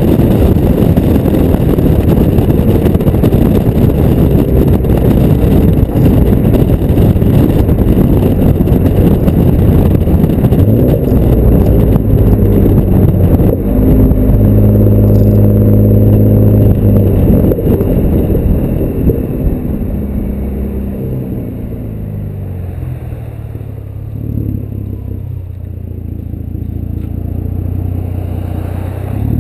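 2010 Ford Taurus SHO's twin-turbo EcoBoost V6 through a custom cat-back exhaust while driving, with heavy wind buffeting on the microphone. The exhaust note holds steady under way, then falls in pitch and fades as the car slows about two-thirds of the way through, and picks up again right at the end.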